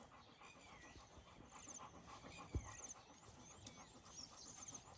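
Dog panting faintly and rapidly, with faint high chirps in the background and one soft knock about halfway through.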